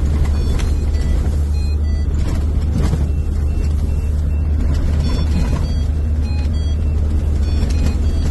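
A vehicle driving, with a loud, steady low engine and road rumble. Short high beeps come and go over it.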